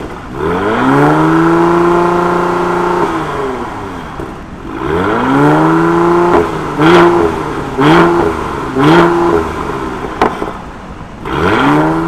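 Mercedes-AMG C43's twin-turbo V6 revved on a stationary car through a Supersprint exhaust: a long held rev that falls back to idle, a second rev, then three quick throttle blips. A single sharp crack follows about ten seconds in, and another rev climbs near the end.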